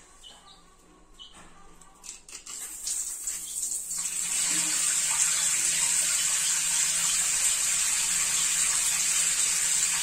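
A jet of water splashing into a plastic basin already full of water. It starts quietly about two seconds in, swells, and from about four seconds in runs as a steady, loud splashing rush.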